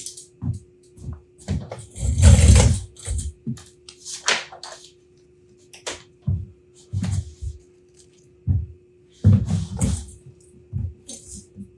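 Wooden drawer parts and hand tools being picked up and set down on a wooden workbench: a series of irregular knocks and clatters, the loudest a longer scraping clatter about two seconds in. A faint steady hum runs underneath.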